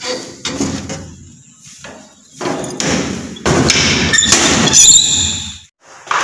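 A metal barrel bolt on a door being worked and the door opened. A click, then scattered knocks, then a loud stretch of rattling and scraping in the second half, with some high metallic ringing near its end.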